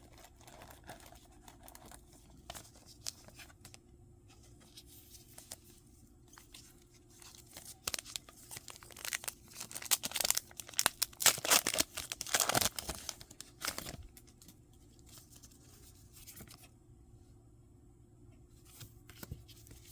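Foil wrapper of a Pokémon booster pack being torn open and crinkled, with the loudest tearing and rustling from about 8 to 14 seconds in, and light handling clicks before and after.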